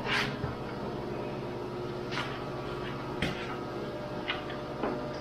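Brief knocks and scrapes of a split PVC pipe half being handled against a snowmobile ski's carbide runner while it is test-fitted as a runner cover. There are about five of them, the first the loudest, over a steady low hum.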